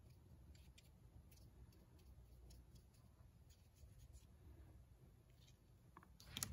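Near silence: faint room tone with a few soft, scattered ticks.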